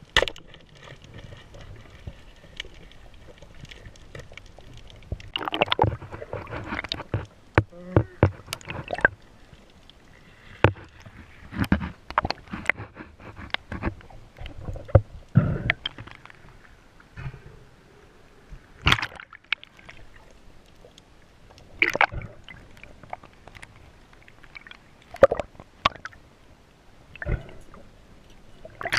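Water sloshing and splashing, broken by many irregular sharp knocks and clicks.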